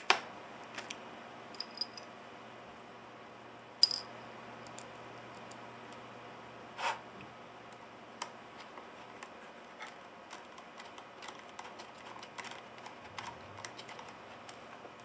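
Small hard clicks and knocks of a 2.5-inch laptop hard drive being handled and set into a MacBook's aluminium drive bay, the sharpest about four seconds in. From about eight seconds on, a run of faint small ticks as a precision screwdriver turns a screw in the drive.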